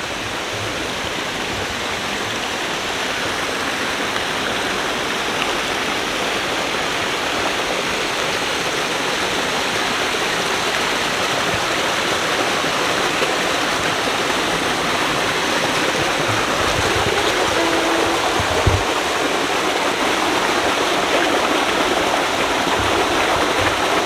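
Mountain stream running over rocks and a small cascade: a steady rushing, splashing wash of water that grows gradually louder.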